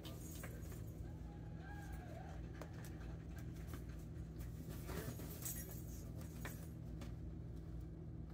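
Kittens playing on carpet: faint soft scuffles and light taps over a steady low room hum.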